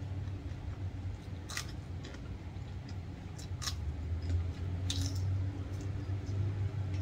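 Close-up eating sounds: a few sharp crunches of bites into raw vegetables such as green beans and cabbage, with chewing in between, over a steady low hum.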